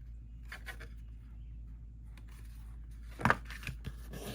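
Card stock being handled and lined up on a craft table: faint paper rustles, then a short thump a little over three seconds in and a few light taps, over a steady low hum.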